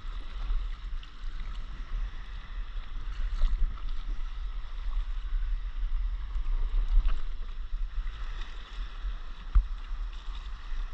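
Water lapping and slapping against a stand-up paddleboard, with a low wind rumble on the microphone; one sharper knock near the end.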